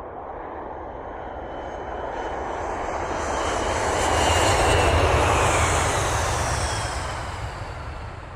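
A vehicle passing by: its noise swells to a peak about halfway through and then fades, with a high whine that falls in pitch as it goes past.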